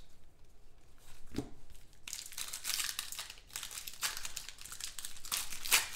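Foil wrapper of a football trading-card pack crinkling as it is handled and torn open by hand, louder and denser from about two seconds in.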